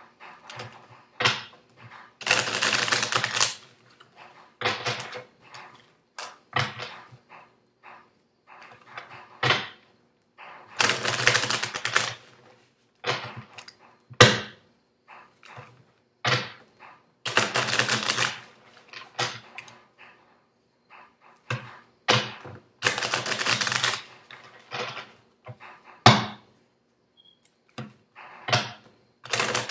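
A deck of cards being shuffled by hand: about five bursts of rapid card-riffling, each a second or so long, with quick flicks in between and a couple of sharp taps of the deck.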